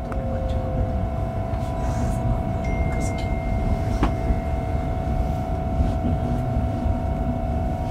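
Inside an X60B (Alstom Coradia Nordic) electric commuter train running into a station: steady rumble of wheels on track with a steady whine, joined by a second, higher whine about two and a half seconds in. A single sharp click about four seconds in.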